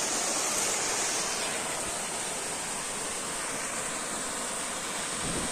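Waterfall pouring over rocks into a stream, a steady rush of water.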